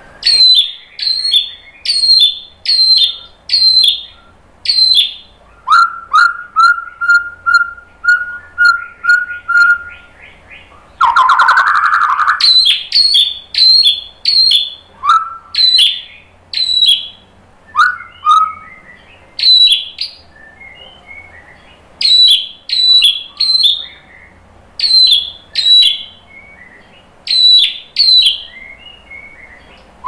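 Male white-rumped shama (murai batu) singing: rapid repeated sharp, high chirping phrases about two a second. About six seconds in there is a run of lower, level whistled notes, and about eleven seconds in a brief lower, grating phrase.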